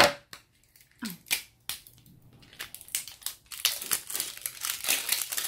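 Plastic wrapping film crinkling and crackling as it is peeled off an L.O.L. Surprise toy ball, opening with one sharp click and growing into steady, dense crinkling from about halfway.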